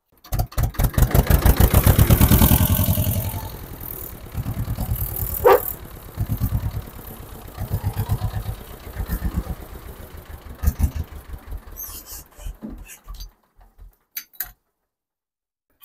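Ursus C-330 tractor's two-cylinder diesel engine starting and chugging as it is driven, loudest in the first few seconds, then running quieter and unevenly before stopping about thirteen seconds in. A brief rising squeal about five and a half seconds in.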